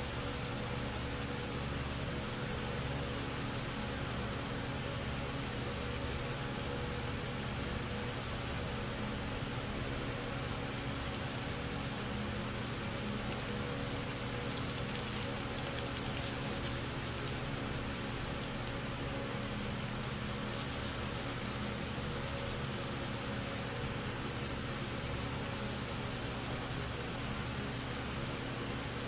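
Hand sanding of primer on a plastic model hood with a sanding sponge: continuous abrasive rubbing strokes across the primed surface, with a steady low hum underneath.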